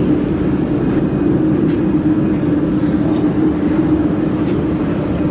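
Mold-repair laser welding machine running after power-on: a steady, loud machine hum from its cooling fans, with a low drone that does not change.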